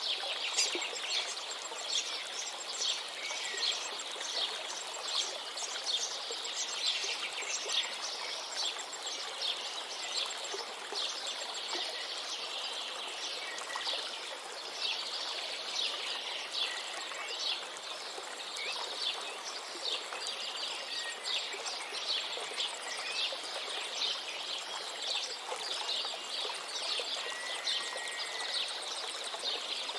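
Many songbirds chirping and singing in quick, overlapping calls over the steady rush of a flowing river.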